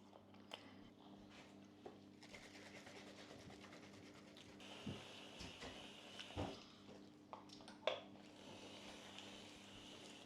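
Near silence over a faint low hum, broken by a few scattered faint knocks and taps of kitchen things being handled and put away, the clearest about halfway and again near the end.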